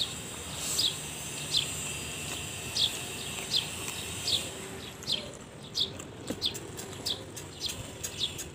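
A bird outside repeats a short, high, falling chirp about once a second, a little faster in the second half. Under it, sharp wet clicks of chewing and lip-smacking come from the person eating noodles close to the microphone.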